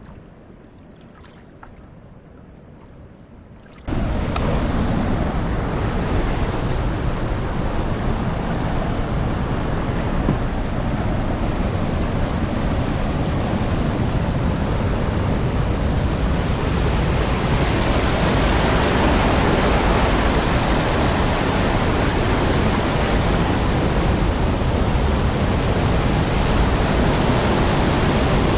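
A few seconds of quiet canoe paddling on calm water, then, about four seconds in, an abrupt change to a loud, steady rush of water pouring through a dam.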